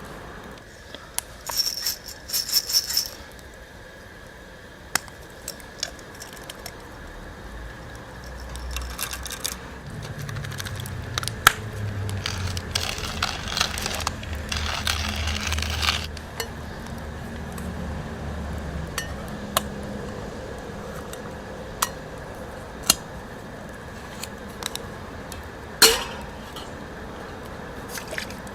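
Clinking of metal camp cookware or dishes a couple of seconds in, then scattered sharp clicks and taps, with a low rumble and hiss through the middle.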